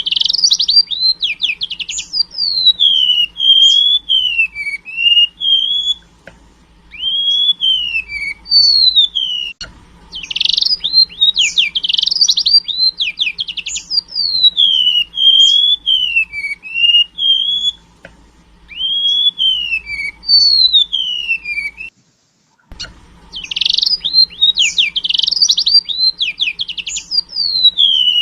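Golden-bellied gerygone (remetuk laut) singing a song filled with learned canary phrases. Each loud phrase opens with a fast rattling trill of sweeps and runs on into a chain of clear whistled notes rising and falling, with short pauses between phrases. The sound cuts out completely for under a second about two-thirds of the way through.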